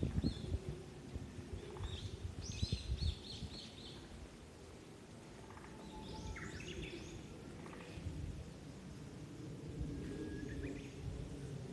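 Wild birds calling: a quick run of high repeated chirps about two and a half seconds in, a more complex call about six seconds in, and a short single note near the end, over a low steady rumble of outdoor noise.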